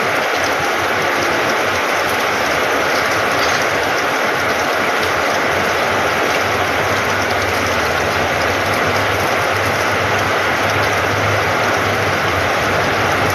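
Heavy tropical downpour, a steady hiss of rain falling on the ground and a corrugated roof. From about halfway through, a low droning hum, like a distant engine, rises in underneath it.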